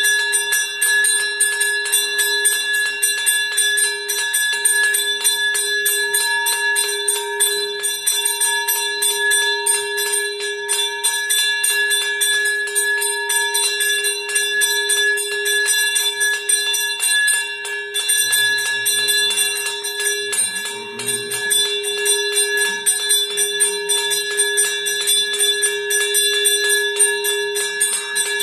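Temple puja bell rung rapidly and without pause, a dense, steady metallic ringing with several ringing tones held throughout.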